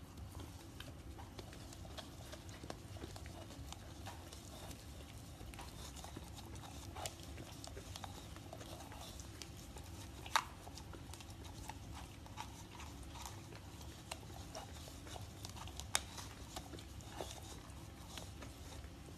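Shar-Pei puppy licking yogurt from a plastic cup held to its mouth: faint, wet licking and smacking, with small clicks of tongue and muzzle against the plastic. Two sharper taps stand out, one about halfway through and one a few seconds later.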